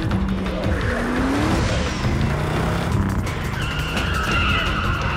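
Car chase: car engines revving, with tyres squealing from about three and a half seconds in, under a dramatic music score.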